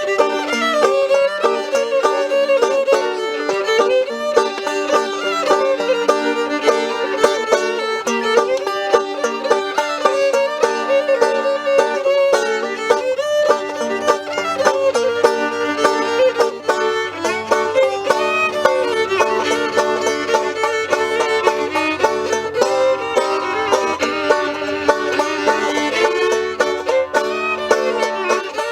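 Live acoustic string music: a fiddle carrying the melody over a plucked banjo accompaniment, with lower notes joining about two-thirds of the way through.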